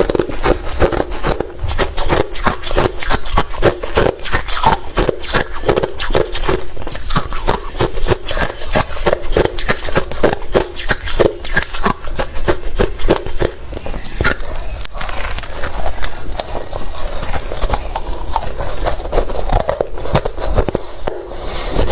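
Close-up chewing of hard refrozen crushed ice: rapid crunching, several crunches a second, going on steadily.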